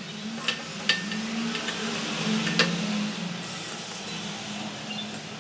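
A few sharp metallic clicks and clinks, about four in all, as small parts and bolts are handled against the valve body and aluminium case of a Renault JF017 transmission, over a steady low hum.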